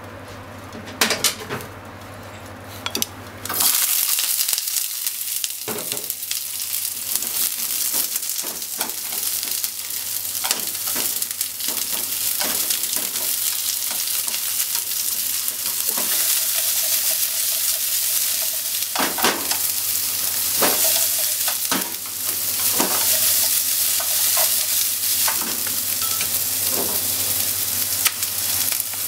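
Sliced onions frying in hot oil in a non-stick frying pan: a loud sizzle starts suddenly a little under four seconds in and keeps going while a wooden spatula stirs and scrapes them around the pan. Before the sizzle starts there is only a low hum and a few clicks.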